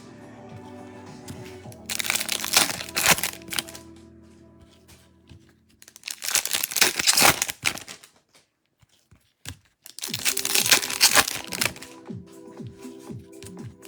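Trading-card packaging crinkling and tearing in three bursts, over background music.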